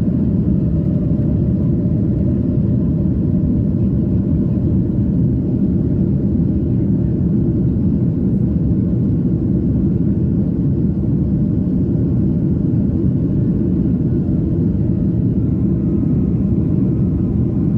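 Steady cabin noise of a jet airliner climbing out after takeoff: engine and airflow noise as a dense, even low rumble.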